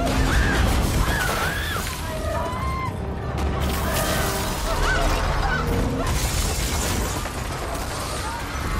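Film soundtrack of a disaster scene: a panicked crowd screaming and shouting over a steady low rumble of destruction, with music underneath.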